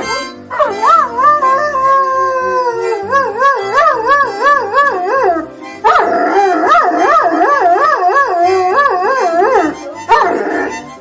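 Dog howling in two long drawn-out howls with a rapidly wavering pitch, then a shorter one near the end, over background music.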